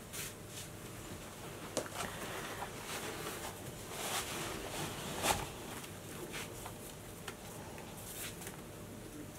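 Rustling and soft knocks of trainers being handled, pulled onto the feet and laced up, with clothing rustle; a few louder knocks about two, four and five seconds in.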